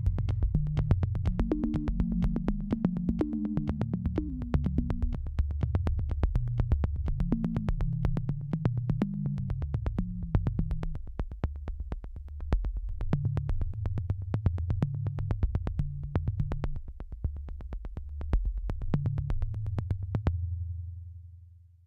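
Electronic background music: a synthesizer bass line under a fast, steady ticking beat. The beat stops near the end and the last low note fades out.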